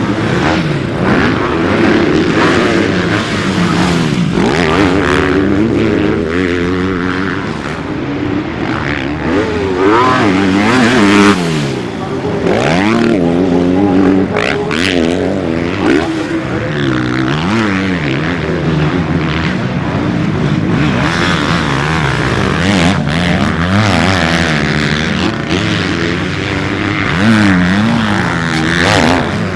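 Several motocross bikes' engines revving up and down on the track, their pitch rising and falling over and over as the riders open and close the throttle, with more than one bike heard at once.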